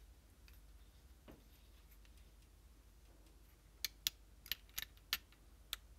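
Hex key turning a small retaining bolt down into a paintball marker's regulator housing: a quiet stretch, then a run of about seven sharp metal clicks in the last two seconds as the key works and knocks against the body.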